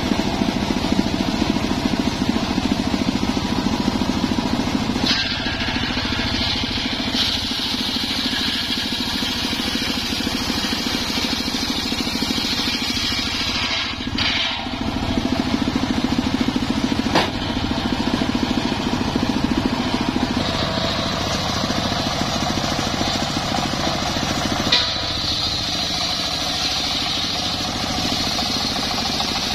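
Homemade engine-driven table circular saw running steadily while acacia planks are ripped on it. A high cutting whine from the blade in the wood joins about five seconds in, breaks off briefly near the middle, and returns near the end over the engine's drone.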